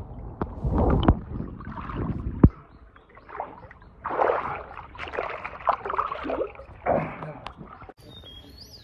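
Swimming-pool water splashing and gurgling around a camera held at the waterline, with a muffled underwater rumble and knocks at first and hand splashes later. About eight seconds in it cuts to quieter poolside air with birds chirping.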